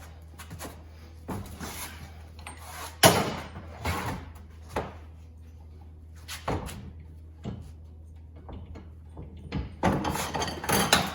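Irregular metallic clunks and knocks as the pinion nut on a Ford 8.8 rear end is heaved on with a bar to crush the crush sleeve, with the loudest knock about three seconds in and a cluster near the end. A steady low hum runs underneath.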